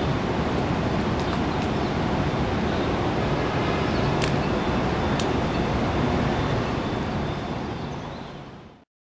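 Steady outdoor city street noise, with a couple of faint clicks midway, fading out and cutting to silence near the end.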